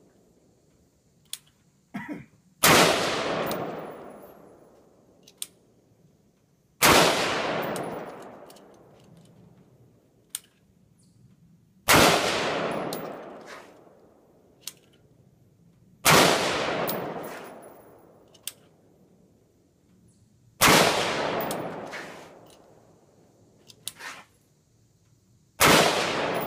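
DPMS Oracle AR-15 rifle fired six single shots, spaced about four to five seconds apart. Each shot fades away over about two seconds.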